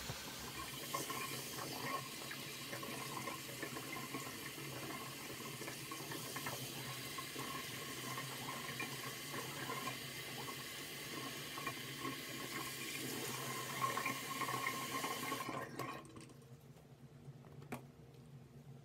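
Shower running, a steady rush of water that stops abruptly about sixteen seconds in as it is turned off, followed by a faint click.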